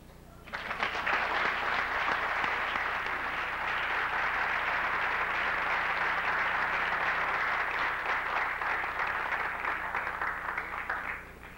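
Audience applauding in a lecture hall, a steady round of clapping that starts about half a second in and dies away near the end.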